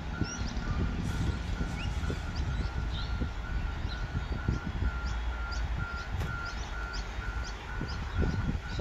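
Railway level-crossing warning alarm sounding a steady electronic beep about twice a second, the signal that a train is approaching. Birds chirp over it, above a low background rumble.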